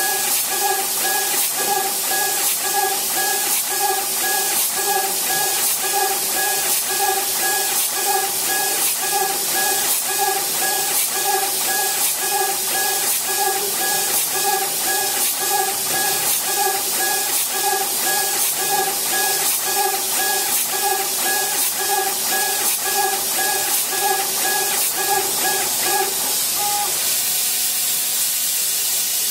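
Laser engraver's stepper motors whining in a rhythmic pulse, about two sweeps a second, as the head rasters back and forth, over a steady hiss of air. The motor tones stop near the end, leaving only the hiss.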